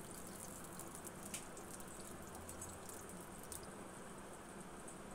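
Faint crackling of a tablespoon of cooking oil heating in a kadai: scattered small sharp ticks over a steady low hiss, the ticks thinning out after about three and a half seconds.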